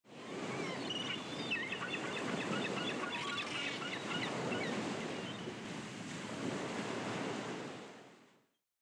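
Waterside ambience: a steady wash of waves and wind, with a scatter of small high chirps in the first few seconds, fading out just before the end.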